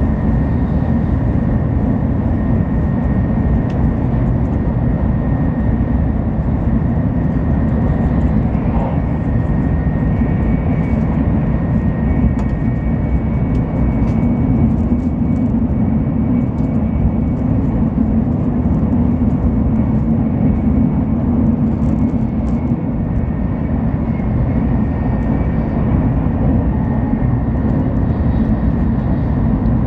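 Shinkansen Hikari bullet train running at speed, heard from inside the passenger car: a steady low rumble and rush with a faint steady high tone above it.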